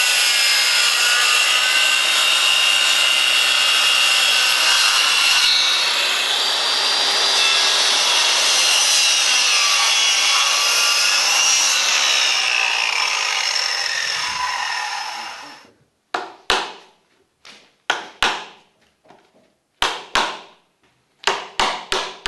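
Electric circular saw cutting into a large timber, its whine wavering in pitch under load, then winding down about 15 seconds in. About a dozen sharp, irregular knocks follow: a hammer striking a chisel to split out the waste wood between the saw cuts.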